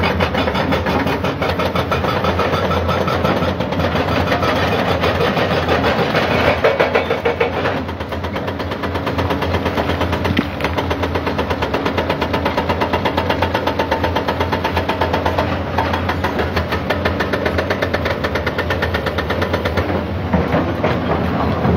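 Diesel excavators running at work, with the rapid, steady hammering of a hydraulic rock breaker on a yellow SANY excavator breaking rock, and loose rock clattering as a bucket digs into rubble.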